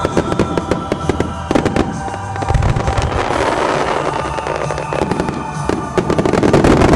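Japanese star mine fireworks barrage: shells bursting in rapid, overlapping bangs with crackling, loudest near the end.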